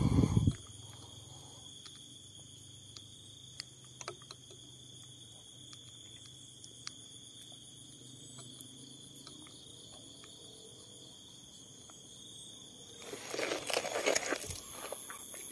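Steady, high-pitched chorus of night insects, several tones sounding at once. A loud thump of handling noise comes right at the start, a few small clicks follow, and a burst of rustling and handling noise starts about thirteen seconds in.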